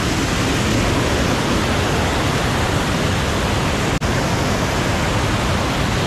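Water pouring over a low river dam, a loud, steady rushing roar heard up close. It drops out for an instant about four seconds in.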